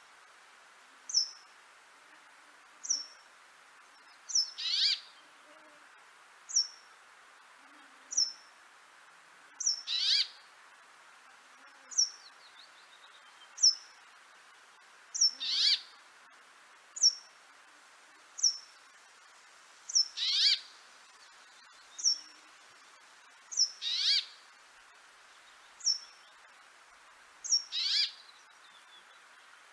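Small songbirds calling. A short, high, falling note repeats about every one and a half seconds, and a louder, longer, harsher call comes about every four to five seconds.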